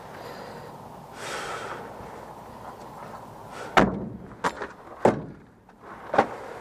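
A short hiss about a second in, then four sharp knocks or clacks of hard objects striking, unevenly spaced over the second half.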